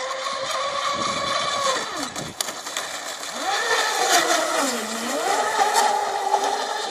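Twin 40 mm electric motors of a radio-controlled Supercat catamaran speedboat whining at speed. The pitch falls away about two seconds in, climbs again, dips low near five seconds as the throttle is eased, then rises back and holds steady.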